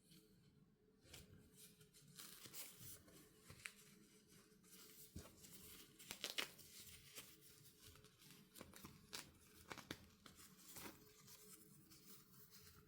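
Faint, irregular rustling and scratching of paper.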